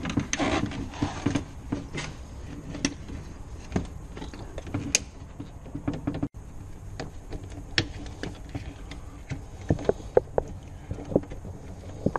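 Irregular clicks, knocks and rattles of a VW Golf Mk4 door carrier panel and its wiring harness being handled and manoeuvred in the door shell, with a brief scraping rustle near the start.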